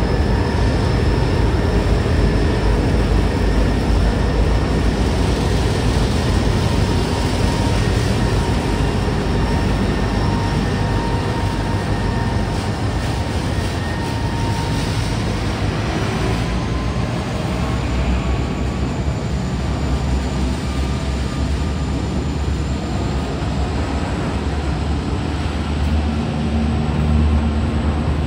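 Two VL-class diesel-electric locomotives pass at walking pace with a steady low diesel rumble. Near the end their sound gives way to the heavier rumble of loaded steel-coil wagons rolling over the rails. Thin, drawn-out squeals ride over the rumble throughout.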